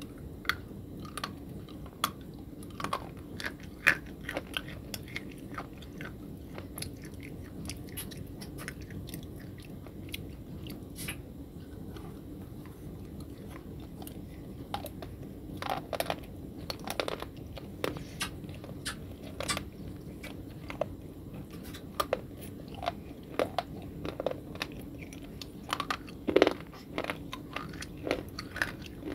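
Close-up biting and chewing of hard white chalk-like sticks: sharp, irregular crunches with quieter chewing between them, coming in clusters, the loudest bites about four seconds in and near the end.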